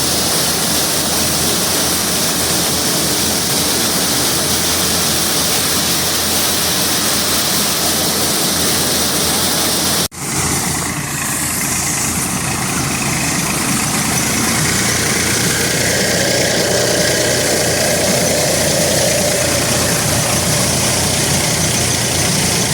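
Engine of corn harvesting machinery running steadily, loud and even. The sound drops out for an instant about ten seconds in, then the engine carries on with a steady low throb.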